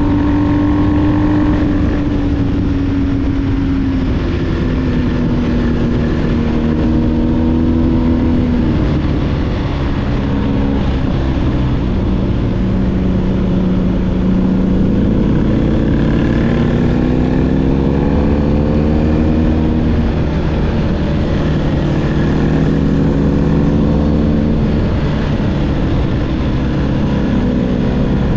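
BMW R1250GS's boxer-twin engine running through an SC Project SCR-1 GT exhaust at road speed. Its note sinks and climbs in pitch several times as the throttle is rolled off and on.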